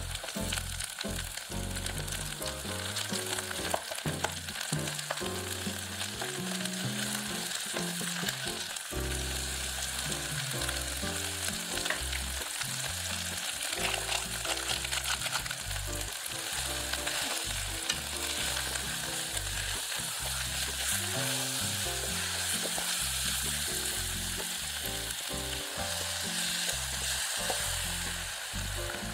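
Sliced onion, green onion and chili peppers sizzling steadily in hot chili oil in a pot as they are stir-fried, with scattered light clicks from the stirring.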